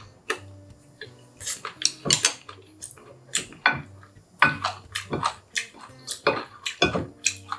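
Wooden spoon scraping and knocking against a ceramic plate while gathering saucy black-bean noodles, in a run of irregular short clicks and scrapes, with chewing in between.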